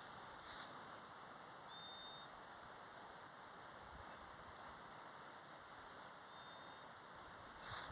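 Crickets chirping: a steady, high, finely pulsing trill, with brief hissy surges about half a second in and again near the end.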